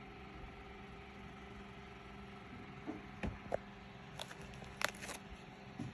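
Clear plastic medal sleeves being handled: a few short crinkles and light clicks in the second half, the sharpest near the end, over a steady low hum.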